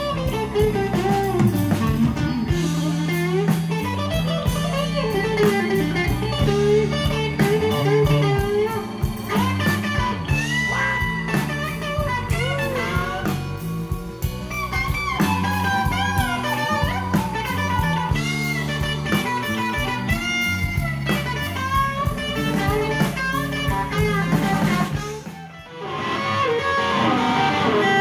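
Live blues band with a Telecaster-style electric guitar playing a lead solo full of string bends over bass and drums. The music drops briefly about 25 seconds in, then carries on.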